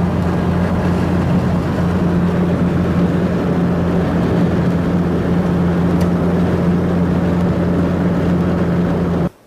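Steady road and engine noise heard from inside a moving vehicle's cabin, with a strong low hum; it cuts off suddenly near the end.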